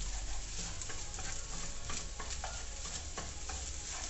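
Rice coated in egg yolk sizzling in a frying pan while chopsticks stir it, with irregular clicks and scrapes of the chopsticks against the pan.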